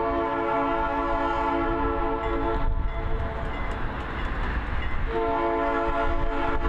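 Diesel locomotive's multi-chime air horn: one long blast of about three seconds, then a second long blast starting about five seconds in, over a low rumble.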